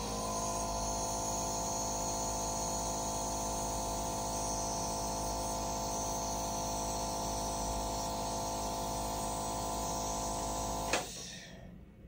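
Nebulizer running with a steady electric hum, turning the test solution into a fog that is breathed through a face mask; it switches off with a click about eleven seconds in.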